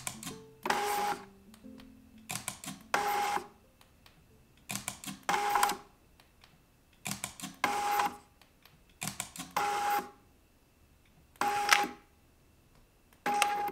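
Film carrier's stepper motor advancing the film in short whirring bursts of about half a second, each with a steady whine, repeating roughly every two seconds, each burst preceded by a quick cluster of clicks.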